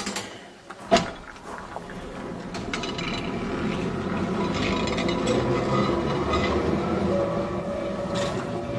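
London electric tram moving off: a sharp knock about a second in, then its running gear and motors building steadily in level.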